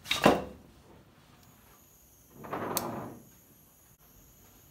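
A blowtorch being lit: a loud sharp clack just after the start, then about two and a half seconds later a short whoosh with a click at its peak.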